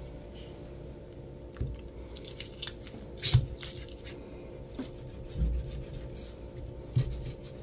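Dull kitchen knife slicing vegetables on a cutting board: irregular cutting strokes and knocks of the blade against the board.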